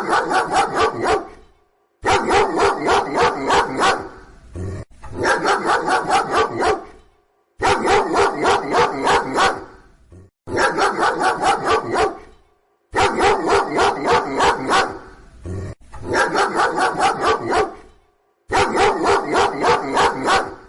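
A dog barking in quick runs of about eight or nine barks each, with short pauses between runs, eight runs in all.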